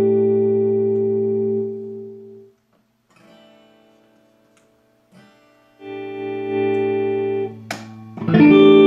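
Epiphone Emperor Swingster Royale hollow-body electric guitar played clean through a Vox AC30 amp. A chord rings out and fades away, a couple of faint notes sound in a short gap, then chords come back and a hard strum near the end rings loudly.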